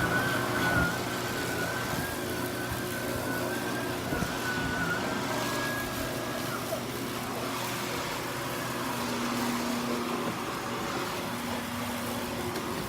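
Hoover Multi cyclonic canister vacuum running steadily while used on stairs, its motor hum carrying a high wavering whine that drops away about six seconds in.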